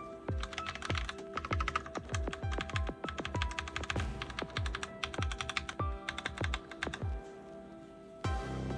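Typing on a Razer BlackWidow Lite mechanical keyboard with Razer Orange tactile, quiet switches: several bursts of quick key clicks that die out about seven seconds in. Background music with a steady beat plays under it.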